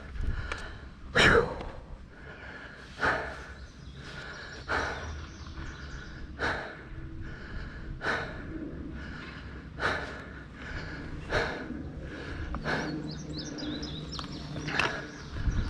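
A rider breathing hard from exertion, with a heavy exhale about every one and a half to two seconds over steady background noise.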